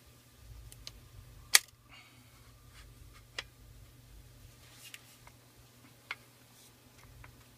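Kalibrgun Cricket air rifle's breech block and barrel/air tube assembly clicking and knocking as the parts are handled and fitted together: one loud sharp click about a second and a half in, then a few fainter clicks.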